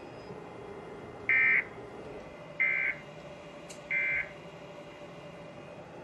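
Emergency Alert System end-of-message (EOM) signal: three short bursts of SAME digital data tones, about a second apart, marking the end of the alert.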